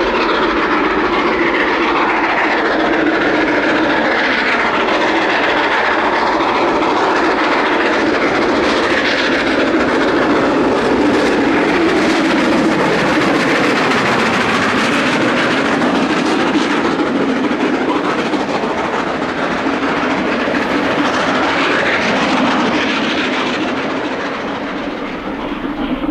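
LMS Royal Scot class three-cylinder steam locomotive 46115 Scots Guardsman working hard up a steep gradient with a twelve-coach train, running loud and steady as it approaches and passes close by. The coaches follow, clattering over the rail joints.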